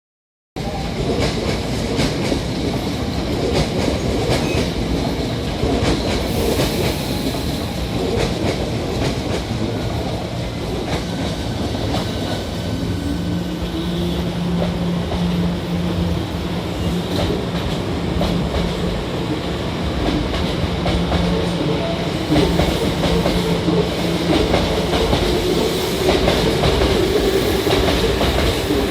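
Hankyu 5300 series electric train pulling out of a station: a steady rumble with wheels clattering over rail joints. About halfway through, a motor whine starts and climbs slowly in pitch as the train gathers speed.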